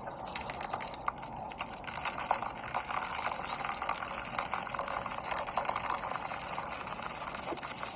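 Beer gushing out of a punctured mini keg held up to a man's mouth, splashing and fizzing down over his face, shirt and the table in a steady crackly spatter.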